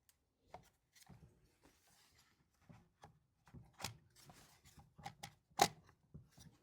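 Irregular plastic clicks and knocks as a replacement recoil starter housing is pushed and worked against a Stihl MS180c chainsaw's body. The part is not seating: it will not fit over. The sharpest knocks come about four and five and a half seconds in.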